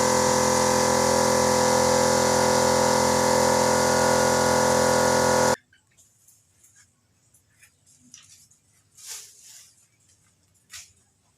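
A small electric paint-spraying compressor runs steadily, a motor hum under a hiss of air, then cuts off suddenly about five and a half seconds in. After that only faint clicks and rustles of handling are left.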